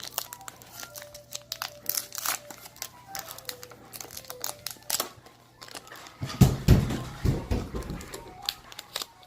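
Foil trading-card pack wrappers crinkling and tearing as packs are opened and the cards handled, with a cluster of loud low thumps about six seconds in. Faint music plays underneath.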